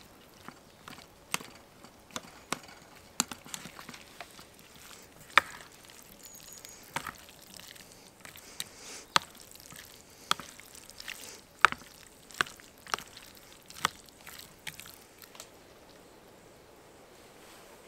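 A string of sharp, irregular chopping knocks, about one or two a second, that stop a couple of seconds before the end.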